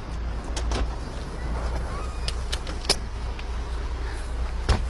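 Steady low rumble of street traffic, with several sharp clicks and knocks from handling around a car, the loudest about three seconds in and another near the end.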